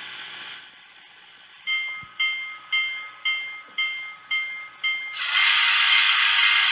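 Steam locomotive sounds: a locomotive bell rings seven times, about two strokes a second, then a loud steady hiss of steam starts about five seconds in.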